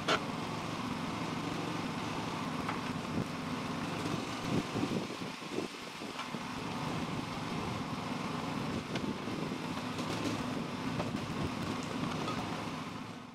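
Tractor engine running steadily at working speed, powering the log loader's hydraulics, with a few knocks from about four to six seconds in.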